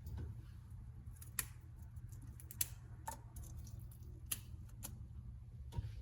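Irregular sharp clicks and taps, roughly one a second, over a faint steady low hum.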